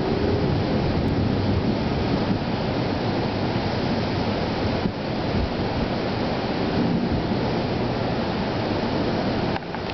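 Steady, loud rushing of a thunderstorm's wind and rain, dropping away briefly near the end.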